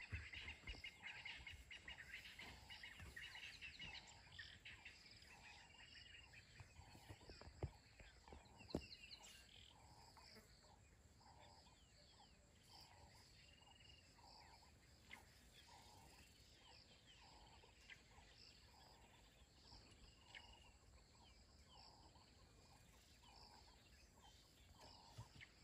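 Faint bush ambience: scattered short bird calls over a soft, evenly repeating pulse about one and a half times a second. Two sharp knocks about a second apart come around eight seconds in.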